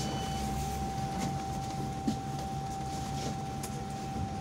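Cabin of a MAZ-215 city bus standing at a stop: the engine idles as a steady low hum, with a constant thin high tone over it and a few light clicks.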